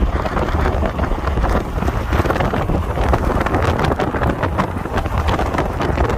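Wind buffeting the microphone, a steady loud rumble with irregular crackling gusts.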